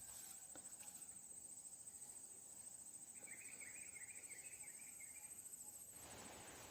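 Faint, steady high-pitched insect trill, cricket-like, with a short run of quick chirps in the middle.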